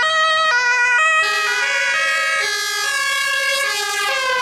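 Ambulance two-tone siren alternating between a high and a low note about twice a second, its pitch sliding gradually lower from about a second in as the ambulance passes.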